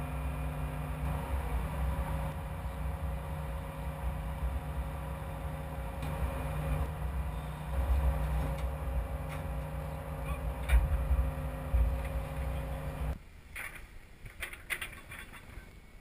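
Excavator diesel engine running steadily, heard from inside the cab, with a couple of heavy knocks as the chained boulder is handled. Near the end the engine sound drops away abruptly, leaving a quieter stretch with a few faint clicks and knocks.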